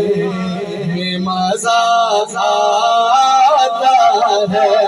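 Man singing a naat, an Urdu devotional song, in long held notes that waver and slide, with a steady low hum beneath the voice for the first second or so.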